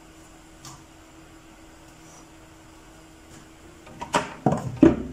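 Steady low room hum, then near the end a few loud rustles and knocks as a freshly cooked roti is handled close to the microphone.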